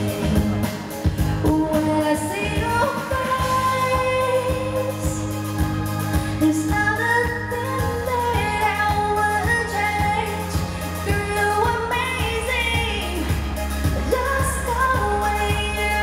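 Live pop music: a female singer sings a melody over full band accompaniment, with a steady low bass line.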